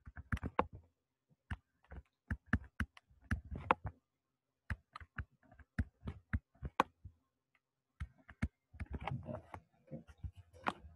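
Stylus tapping and scratching on a tablet's writing surface as equations are written by hand: a run of irregular sharp clicks, some bunched into quick clusters.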